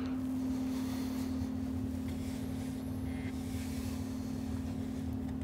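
Steady low hum with one constant tone, unchanging throughout, with faint light rustling around the middle.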